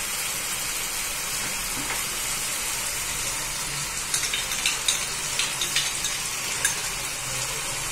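Chilli-and-ketchup sauce sizzling in a non-stick frying pan over a gas flame while a wooden spatula stirs it. About four seconds in, a run of short crackles and taps starts as a cornflour-and-water slurry is poured into the pan to thicken the sauce.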